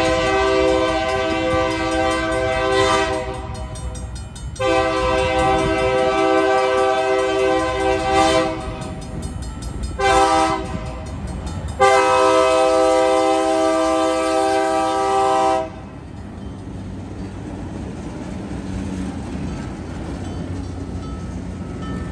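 ALCO C420 diesel locomotive sounding its horn in the grade-crossing pattern: two long blasts, one short and a final long one. After the horn stops, the locomotive's 12-cylinder ALCO 251 diesel engine is heard rumbling as it rolls past.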